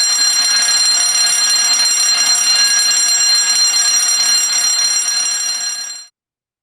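A loud, continuous shrill tone with many steady overtones that cuts off suddenly about six seconds in.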